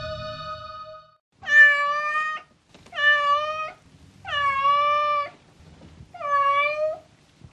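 A held electronic chord fades out about a second in. Then a cat meows four times, each meow drawn out for about a second with a short gap between.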